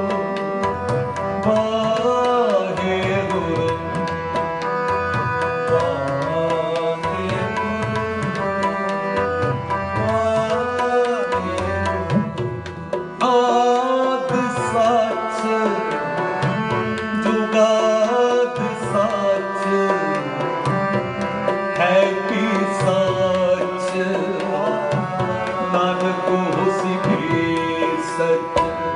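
Sikh shabad kirtan: Nagi harmoniums hold sustained chords and a tabla keeps a steady rhythm under a man's singing. The music briefly drops in loudness about thirteen seconds in.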